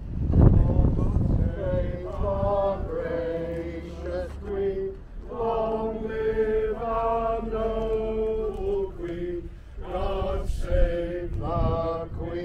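A small outdoor congregation of men and women singing together from their service sheets, in long held notes that step from one pitch to the next, over a low rumble of wind on the microphone. A louder rumble hits the microphone about half a second in.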